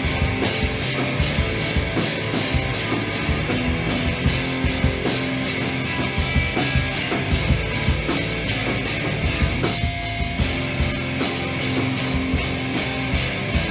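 Loud rock music with distorted guitar and a driving drum kit beat.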